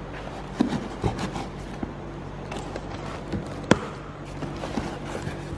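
Cardboard shipping box being cut open with a knife and its flaps pulled back: scraping and rustling cardboard with a few sharp knocks, the sharpest just past the middle. A steady low hum runs underneath.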